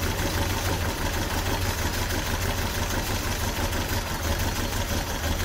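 A 1972 Triumph Spitfire Mk IV's four-cylinder engine idling steadily.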